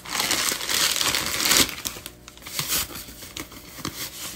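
Clear plastic packaging bag crinkling as it is pulled open, loud for about the first second and a half, then softer crinkling and rustling as the foam-wrapped lotion bottle inside is handled.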